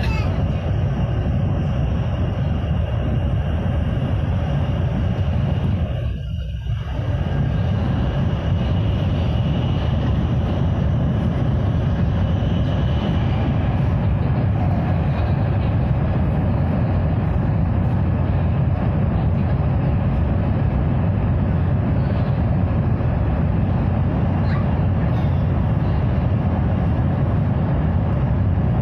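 Cabin running noise of an 800 series Shinkansen train: a steady low rumble that dips briefly about six seconds in.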